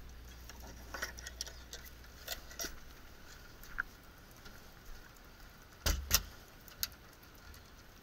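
Scattered light clicks and knocks from a hook-and-eye latch being fastened on a crawlspace access door and a person moving about, with two louder knocks about six seconds in.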